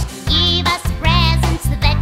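Children's Christmas song: a steady bass line under a sung melody with vibrato.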